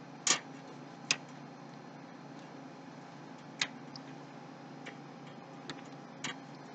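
Scattered sharp plastic clicks and taps of PC power-supply cables and connectors being handled and pushed into place, the two loudest near the start, then single clicks a few seconds apart, over a faint steady hum.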